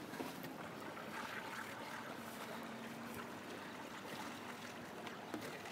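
Quiet water lapping and trickling against the hull of a small sailboat moored alongside a dock, with a few faint clicks.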